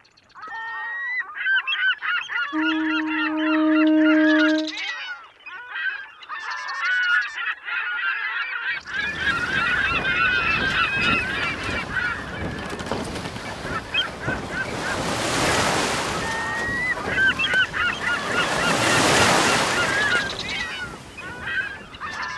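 Many birds calling over one another throughout, with a steady low tone lasting about two seconds near the start. From about nine seconds in, a rushing wash of noise joins the calls and swells twice.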